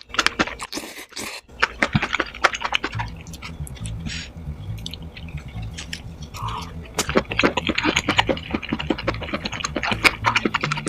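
Sped-up eating sounds: rapid, dense chewing and crunching clicks. Background music with a low bass line comes in about three seconds in.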